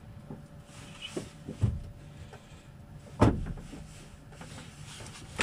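Three short knocks and clicks from handling in the cockpit of a light aircraft with its engine stopped; the loudest knock comes about three seconds in.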